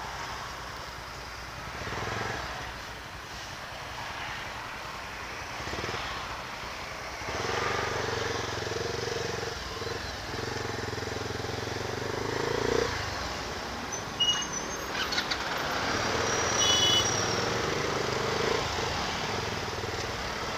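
Motorcycle engine running in slow stop-and-go traffic, swelling and easing off as the rider pulls ahead and slows, with the sound of the surrounding cars and motorcycles. A few short high-pitched tones come from the traffic about two-thirds of the way through.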